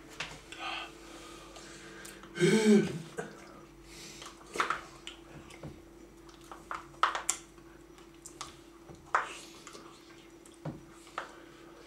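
Plastic spoons scraping and clicking against plastic sundae cups as two people eat ice cream quickly, a scattered series of short clicks and scrapes. About two and a half seconds in, one of the eaters makes a brief voiced grunt or groan, the loudest sound here, over a faint steady hum.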